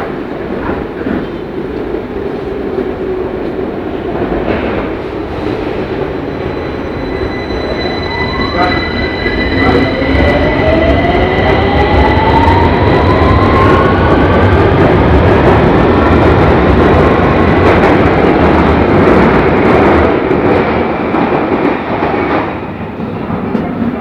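A London Underground 2009 Stock train pulls out of the platform and accelerates away. Its traction motors give a whine that rises in pitch from about a third of the way in, over the rumble of wheels on rail. It is loudest as the cars pass and fades near the end as the train clears the platform.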